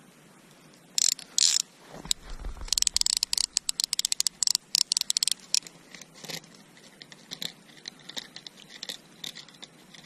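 Close rustling and scraping with runs of rapid clicks as fishing line is pulled in by hand and worked onto a small ice-fishing reel, with a strong fish on the line. It starts about a second in and thins out toward the end.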